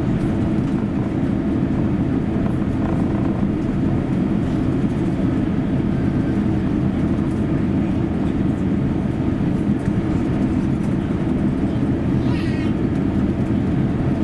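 Steady cabin noise inside an Airbus A350 taxiing with its Rolls-Royce Trent XWB engines at idle: a constant low rumble and hum with no change in level.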